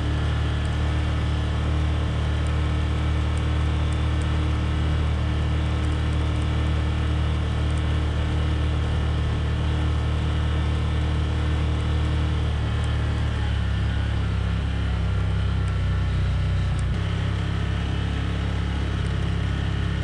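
Can-Am Commander side-by-side UTV driving along at a steady pace, its engine a steady low drone. The engine note shifts slightly about two-thirds of the way through.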